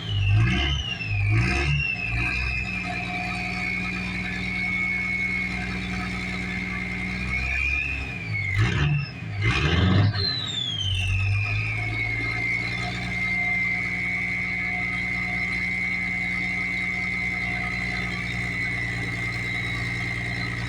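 Cummins 24-valve inline-six turbodiesel running cold with a high, steady turbo whistle. The engine is revved briefly near the start and twice around the middle. With each rev the whistle jumps up in pitch, then glides back down over a couple of seconds and settles as the engine returns to idle.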